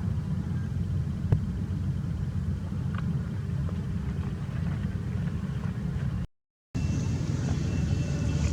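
Steady low rumble, cut off by a brief moment of silence about six seconds in.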